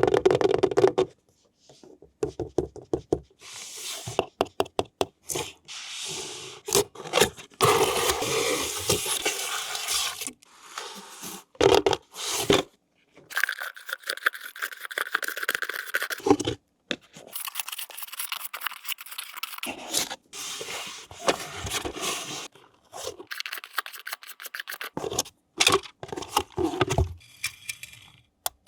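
Toy packaging being handled and opened: irregular scraping, tearing and rustling, broken up by many sharp clicks and short pauses.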